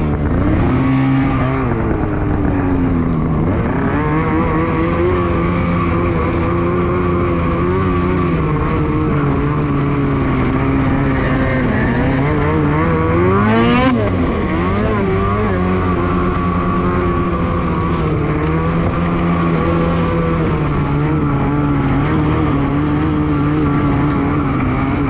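Two-stroke 850 engine of a 2021 Polaris Switchback Assault snowmobile running under throttle while riding, its pitch rising and falling as the throttle changes, with a quick rev up and back down about halfway through.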